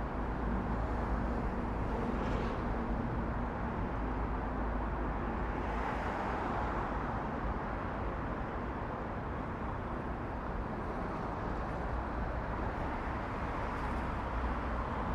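Steady road traffic noise from nearby vehicles, with a low engine hum underneath. Passing vehicles swell it a little about two and six seconds in.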